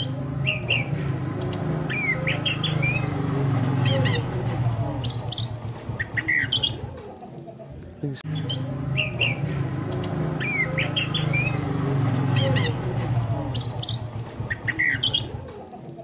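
Recorded chestnut-capped thrush (anis kembang) song, used as a trigger track: rapid high chirps and whistles that repeat as a loop about every eight seconds, over a steady low hum.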